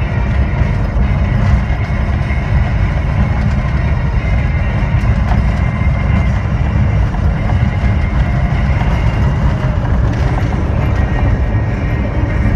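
Steady low rumble heard inside a vehicle's cab while it drives on a gravel road: engine and tyre-on-gravel noise, with a faint steady whine above it.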